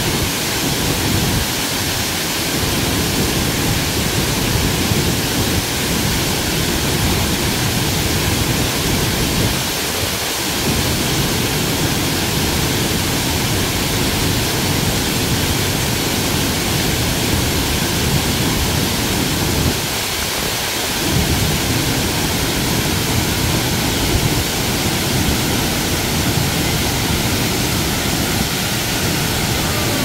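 Hongryong Falls, a 20 m waterfall swollen by recent monsoon rains, crashing into its plunge pool: a loud, steady rushing roar, heaviest in the low end.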